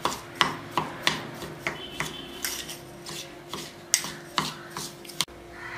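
Steel spoon scraping and clinking against the inside of a small stainless-steel bowl while stirring grated jaggery into oil, in quick repeated strokes, two to three a second.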